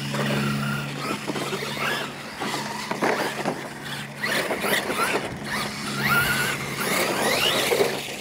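Two Losi LMT radio-controlled monster trucks racing, their electric brushless drivetrains whining and rising and falling in pitch as the trucks accelerate, jump and land.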